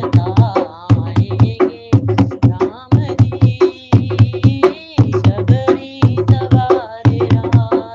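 Hindi devotional bhajan: a sung melody with wavering, ornamented pitch over a steady, fast hand-drum beat in the tabla/dholak style.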